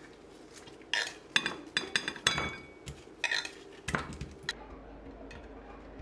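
Chunks of cut watermelon tipped from a clear container into a ceramic bowl: a quick run of about a dozen clinks and knocks as the pieces land and the container strikes the bowl, starting about a second in and lasting some three and a half seconds.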